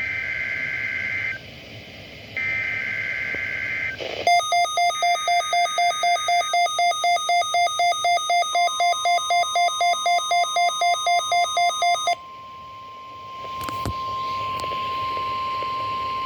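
NOAA Weather Radio SAME alert header: short bursts of screechy two-pitch digital data tones. Then a Midland WR-120 weather radio's alert beeping, about three beeps a second for about eight seconds. A steady single tone starts partway through the beeping and carries on after it stops, with a sharp click near the end.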